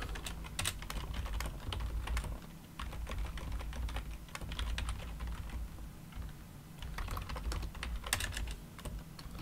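Typing on a computer keyboard: irregular runs of quick key clicks, thinning out in the middle and picking up again with a burst near the end.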